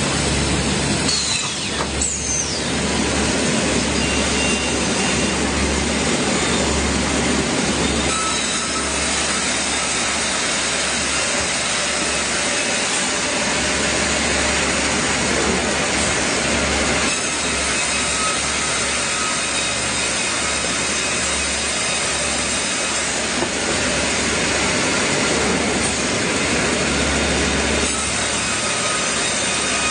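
Sawmill saw cutting through wood, a loud, steady, dense machine noise with a low hum underneath.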